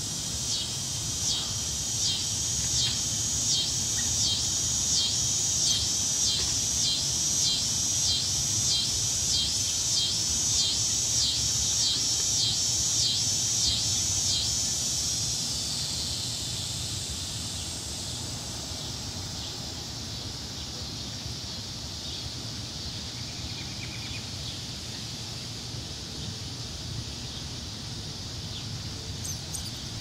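A chorus of insects calling in the trees: a high, rhythmic pulsing buzz, about one and a half pulses a second, that blurs into a steady high hiss about halfway through and grows fainter.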